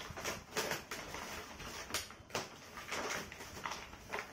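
Cardboard shipping carton being opened by hand: a string of short crackles, scrapes and knocks.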